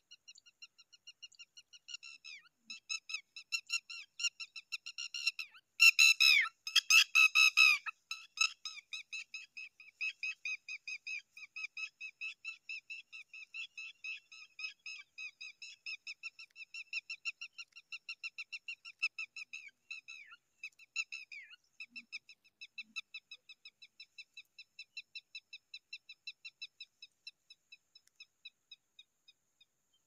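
Zitting cisticola nestlings begging: a steady run of thin, high cheeps, about five a second. The cheeps grow louder for a couple of seconds about six seconds in, then fade and stop near the end.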